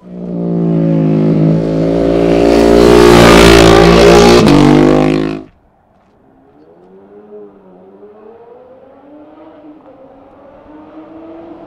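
A motorcycle engine running loud and steady, swelling for about three seconds, then cut off abruptly about five and a half seconds in. After that a much fainter engine is heard, its pitch rising and falling.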